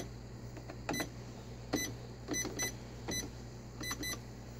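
Keys being pressed on a Royal Alpha 1100ML electronic cash register. Each press gives a short click and a short high beep, about seven presses at an uneven pace.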